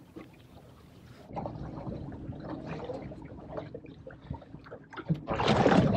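Water lapping and trickling around a small aluminium boat at anchor, with scattered small knocks, and a louder rush of noise near the end.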